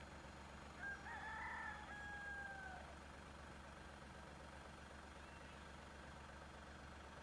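A rooster crowing once about a second in: a wavering start, then a long held note that sags at the end. The steady low hum of the car runs underneath, and faint short bird chirps come near the end.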